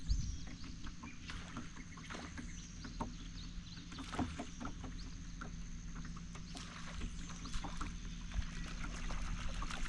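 Steady hum of a boat motor with a thin high whine, its pitch rising near the end. Many short clicks and ticks are scattered over it.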